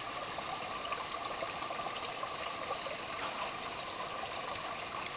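Small woodland stream at low water, running steadily with a trickling, gushing rush.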